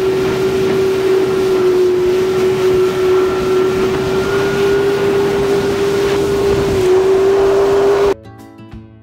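Jet ski engine running at a steady high pitch at speed, over a loud rush of wind and water; the pitch dips slightly twice. About eight seconds in it cuts off abruptly and quieter guitar music begins.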